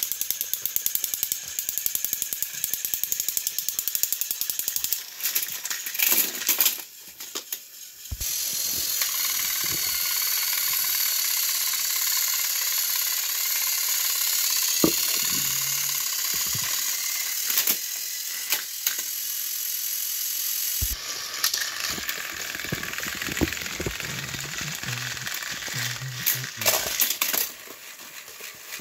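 Battery-powered Thomas & Friends toy engines pushing against each other on plastic track: a steady whir and rattle of small motors and gears, with a few sharp clicks.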